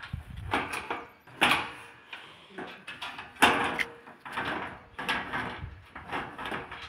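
Steel channel sections of a solar panel mounting frame being handled and fitted together: a series of irregular knocks and scrapes of metal on metal, the loudest about a second and a half and three and a half seconds in.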